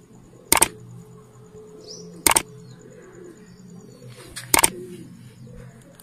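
Three sharp mouse-click sound effects from a Like / Subscribe / bell-button animation, about two seconds apart, over faint bird calls and cooing.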